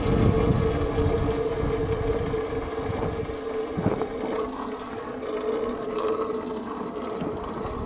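Water from a hose running into a steel air-compressor tank through its top port, a steady rushing with a ringing hum, to rinse rust flakes out of the tank. It starts and stops abruptly.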